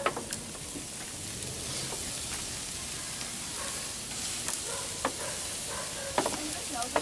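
Chicken and beef sizzling steadily on a charcoal grill's grate, with a few sharp clicks of metal tongs against the grate as the pieces are turned, most of them near the end.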